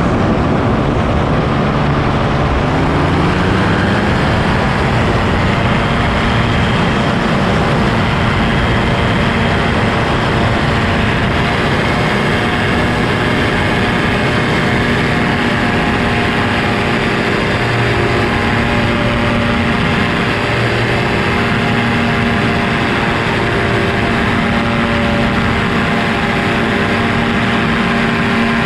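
Quicksilver ultralight's engine and propeller running in flight, the engine speed rising over the first few seconds and then holding steady. Heavy wind noise over the open cockpit.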